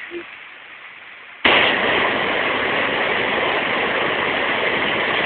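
Rushing stream water pouring over rocks: a steady noise that jumps suddenly to a loud level about a second and a half in.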